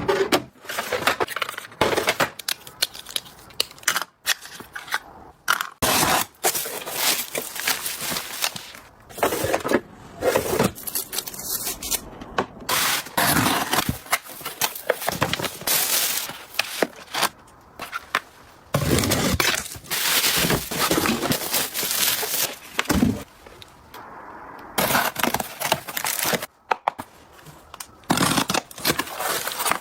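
Product packaging being handled and opened by hand: a long run of short, irregular bursts of handling noise with brief pauses between them.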